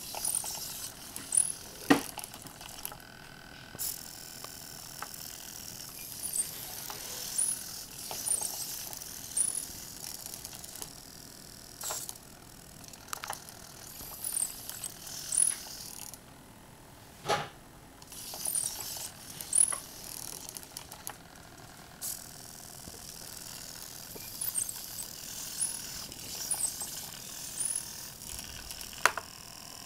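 Hobby servomotors of a homemade robot arm whirring through their gears in short spells as the joints move, with quick rising whines and a few sharp clicks.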